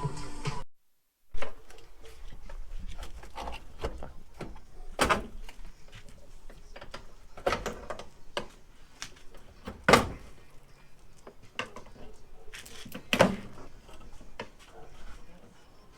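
Scattered clicks, knocks and clunks of metal body parts and tools being handled during a vehicle teardown, with four louder sharp bangs spread through.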